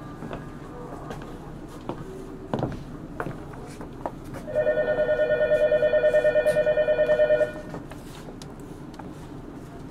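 An electric bell rings in a rapid, even trill for about three seconds, starting a little over four seconds in. A few short knocks come before it.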